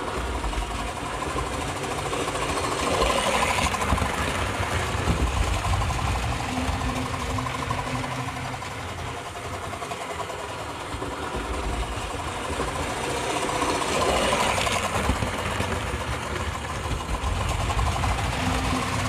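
Tri-ang Hornby model steam locomotive running around an OO-gauge layout: a steady mechanical whirr with the rattle of wheels on metal track. It swells louder twice.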